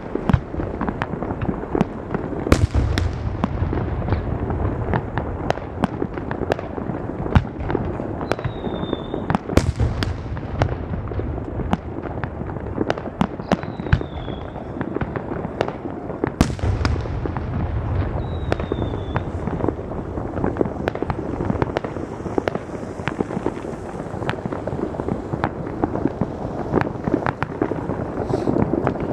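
Fireworks going off over a city: a dense, continuous crackle of many bangs, with three heavier low booms about seven seconds apart and a few short, high whistles between them.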